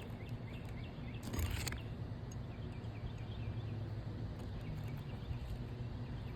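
Steady low outdoor background hum, with a run of short high chirps repeating a few times a second from about one and a half to four seconds in, and a brief scrape about a second and a half in.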